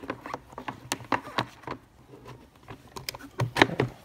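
Hard black plastic trays of a salon trolley cart being handled, giving irregular clicks and knocks, the loudest a little before the end.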